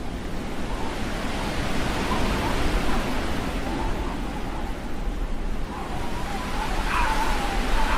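Steady rushing noise, strongest in the lows, with a faint wavering tone and a short swooping tone about seven seconds in.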